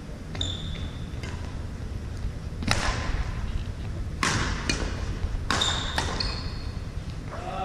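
Badminton rally in a large gym: racquets strike the shuttlecock with sharp, echoing smacks, about one a second or so, the loudest about three seconds in. Sneakers give short high squeaks on the hardwood floor near the start and again near the end.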